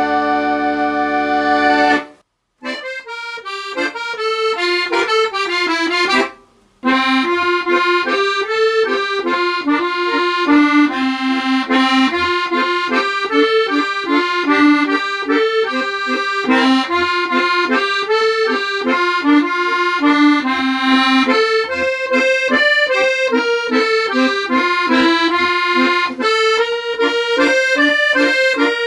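Scottish accordion music. A held chord ends about two seconds in, and after a short pause a new tune starts with steady, clearly separated melody notes over a chordal accompaniment, broken by a brief gap near seven seconds.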